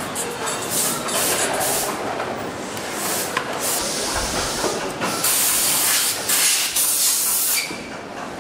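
Factory workshop background noise with several bursts of loud hissing, the loudest and longest from about five seconds in, cutting off about a second before the end.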